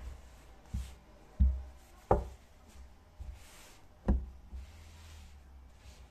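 Four irregular knocks or thumps over a few seconds, with soft noises between them.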